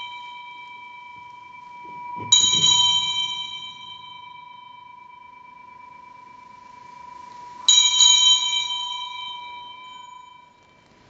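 Altar bell rung at the elevation of the chalice during the consecration at Mass. It is struck about two seconds in and again near eight seconds, each stroke ringing out long with a clear, steady tone over the fading ring of a stroke just before.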